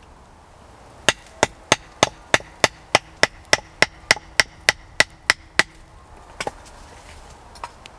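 Chopping: a fast, even run of about sixteen sharp strikes, roughly three a second, each with a faint ringing tone, then two single knocks near the end.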